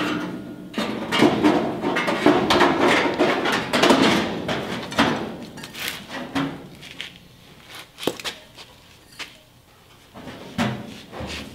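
A loose sheet-metal wheel tub clattering and scraping against a car body's quarter panel as it is pushed into the wheel opening for a test fit: a dense run of metallic knocks and rattles for about the first five seconds, then a few single knocks.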